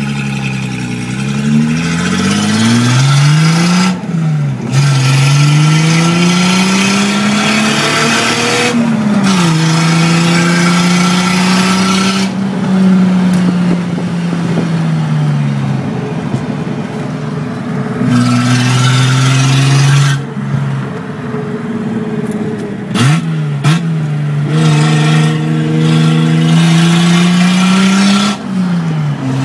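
Datsun 280Z's straight-piped straight-six, heard from inside the cabin, pulling hard through the gears: the engine note climbs in pitch and drops sharply at each upshift, twice in the first ten seconds, then holds steadier, eases off and climbs again.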